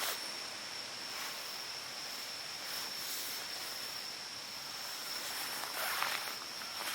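A steady, high-pitched insect drone over the hiss of forest background, with a few faint rustles.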